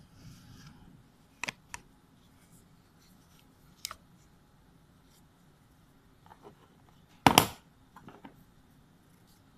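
Handling noises from fingers working close to the camera: a few sharp clicks, two close together about one and a half seconds in and another near four seconds, then a louder, longer burst of noise about seven seconds in.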